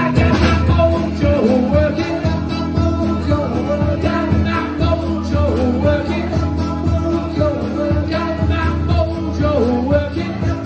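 A live blues number played on a steel-string acoustic guitar and a drum kit, with a man singing over it.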